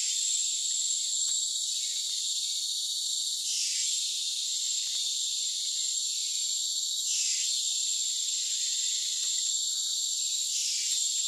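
Dense chorus of rainforest insects: a steady, high-pitched shrill drone with one sharp tone running through it, swelling briefly about every three and a half seconds.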